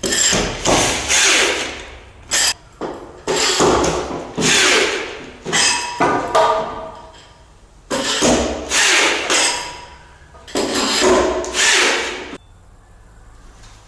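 Power tool driving nuts down onto concrete anchor bolts. It runs in about six bursts of one to two seconds each, with short pauses between them.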